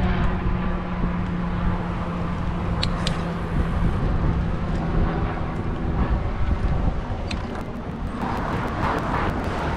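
Road traffic at a street crossing: a steady engine hum that fades about six seconds in and a vehicle passing near the end, over low wind rumble on the microphone of a moving bicycle.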